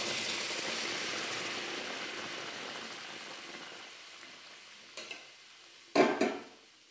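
Hot water poured onto fried masala paste in a metal kadhai, sizzling loudly and then dying away over a few seconds as the water cools the pan. A small click about five seconds in, then a short loud clatter of the steel spatula against the pan about six seconds in.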